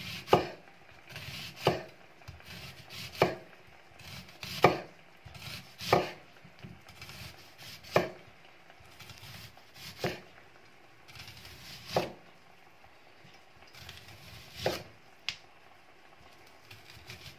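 Chef's knife slicing a red onion into thin rounds on a wooden cutting board, each cut ending in a sharp knock of the blade on the board. About ten knocks, one every two seconds or so, spacing out a little in the second half.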